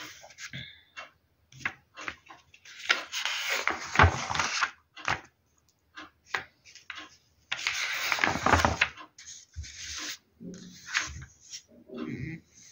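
Magazine pages being handled and turned: paper rustling, with two longer rustles about three and eight seconds in and short taps and crinkles between.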